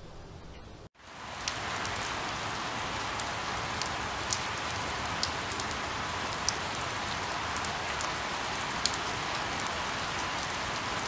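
Steady rain falling on leaves, with scattered sharp drop hits standing out; it starts abruptly after a brief dropout about a second in.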